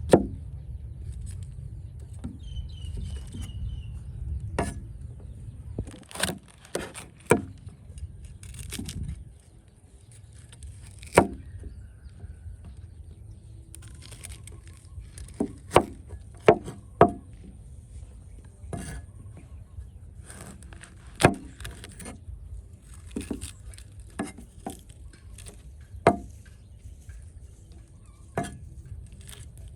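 Chopping on a wooden board: sharp single knocks at irregular intervals, every second or two, over a low steady rumble.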